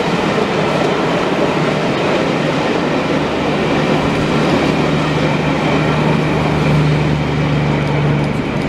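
A passenger train rolling past at speed: a steady, loud rumble of wheels on rail, with a steady low hum that grows stronger from about halfway.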